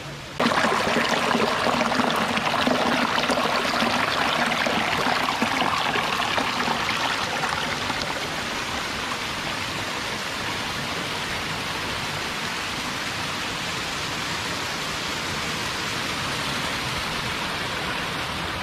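Waterfall: a steady rush of falling water that starts abruptly about half a second in, a little louder for the first several seconds.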